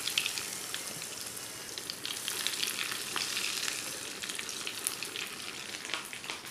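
Breadcrumb-coated moringa-leaf cutlets deep-frying, freshly dropped into hot oil: a steady crackling sizzle with many small pops, easing slightly near the end.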